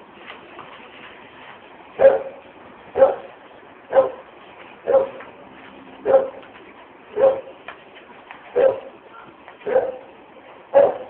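A dog barking over and over, about one bark a second, nine barks starting about two seconds in.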